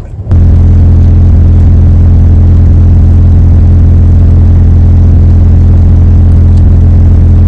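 A loud, steady low mechanical drone with an even set of tones, like a motor running at constant speed. It starts suddenly and does not change.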